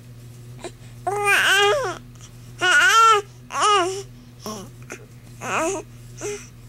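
Young baby fussing during tummy time: a run of whiny, wavering cries, three longer ones followed by three short ones.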